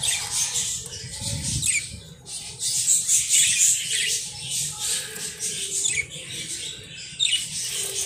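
Budgerigars chattering: a busy, continuous run of fast, high-pitched chirps and warbles.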